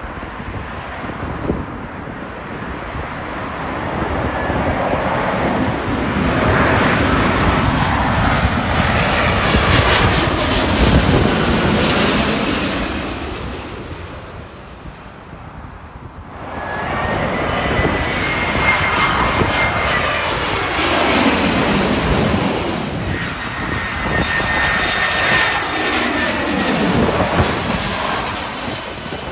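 Two jet airliners passing low overhead on landing approach, one after the other. First a British Airways twin-jet builds to its loudest about ten to twelve seconds in and fades. Then, after a sudden change, a small Airbus twin-jet passes with its engine whine falling in pitch.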